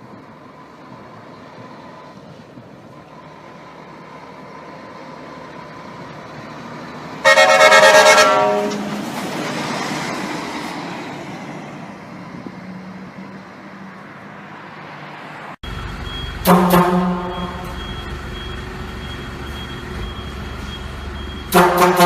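Vehicle horns honking in separate clips. A loud blast of about a second comes first; after an abrupt cut there is a short honk, and another begins near the end. Engine and traffic noise fill the gaps.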